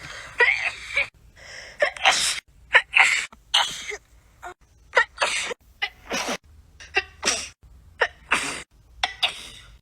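A rapid run of human sneezes, about a dozen short ones spliced one after another with abrupt cuts between them.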